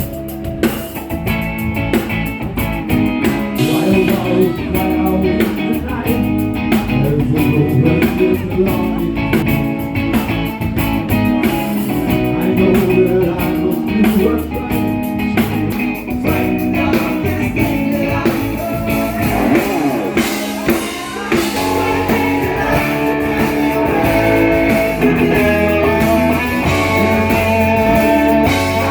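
Live band playing blues-rock, with guitar, drums and singing.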